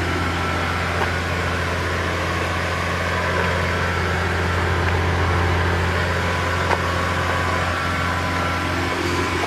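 Saab car engine running steadily at idle with a faint steady whine above the drone; the owner suspects turbo failure. One brief click about two-thirds of the way through.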